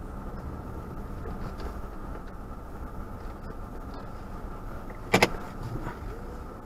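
Steady low rumble of a car driving slowly on a snow-covered road, heard from inside the cabin, with one sharp double knock about five seconds in.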